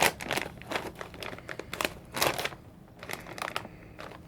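Plastic snack bag of BBQ-flavoured Cheetos crinkling in bursts as it is handled and opened, loudest at the start and again about two seconds in.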